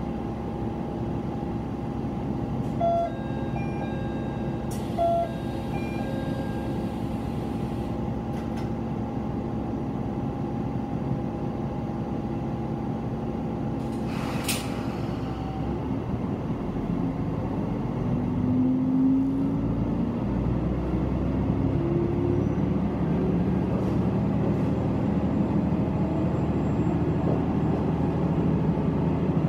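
Diesel railcar's engine idling at a station, heard from inside the car, with a few short electronic beeps about three and five seconds in and a brief hiss of air near the middle. After that the engine revs up with a rising tone and gets louder as the train pulls away.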